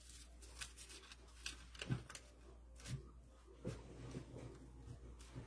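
Faint rustling and light ticks of dry raffia and dried stems being handled and tucked into a bow, over a low steady hum.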